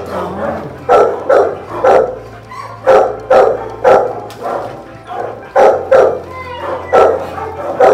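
Dogs in shelter kennels barking repeatedly, loud sharp barks coming about twice a second.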